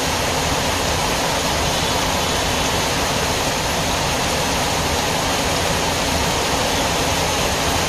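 Steady rain falling, a loud even hiss with no breaks.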